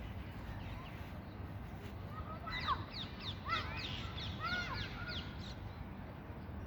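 Birds calling outdoors: a flurry of short, quick squawking calls, many overlapping, for about three seconds in the middle, over a steady low rumble.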